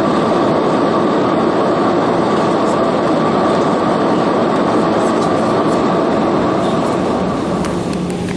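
Steady cabin noise of an Airbus A320 in flight: the even rush of airflow and the drone of its CFM56 engines, with a thin steady hum running through it. It eases off slightly near the end.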